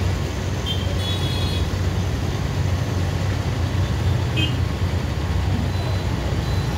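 Steady road traffic: auto-rickshaw, motorcycle and car engines running as they pass, with a constant low rumble. A few short, faint high tones come about a second in and again just past four seconds.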